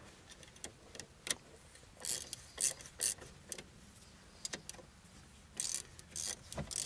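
Metal clicks and clinks from a wrench on the bolts of a new lower ball joint, with no steady rhythm. Some come in quick short runs, about two seconds in and again near the end.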